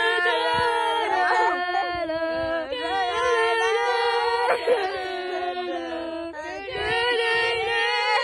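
Background music of several voices singing sustained, choir-like harmonies at a steady level.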